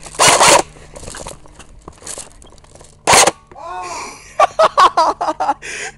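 Two short, loud bursts of noise about three seconds apart. After the second, a person's voice makes wordless, wavering cries.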